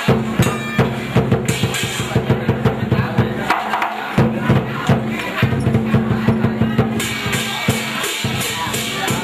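Fast, loud drumming: rapid drum strikes in a steady driving rhythm, with a brief break about three and a half seconds in.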